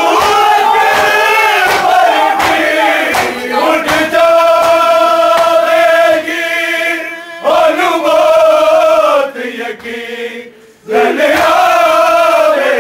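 A crowd of men chanting a Punjabi noha (mourning lament) in unison, with long held sung lines, over an even rhythm of thuds, the chest-beating (matam) that keeps time with the lament. The singing breaks off briefly about ten seconds in, then resumes.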